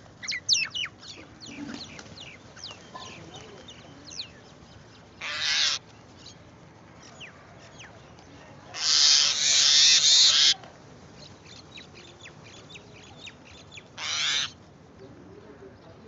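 A flock of house crows calling, with loud harsh caws about five seconds in, a longer stretch of caws around nine to ten seconds, and another near the end. Quick thin chirps from smaller birds fill the first few seconds and continue more faintly between the caws.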